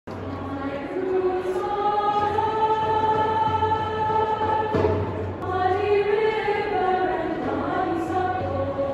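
Mixed choir singing long, held chords. The phrase breaks briefly about five seconds in, and the singers move to a new chord.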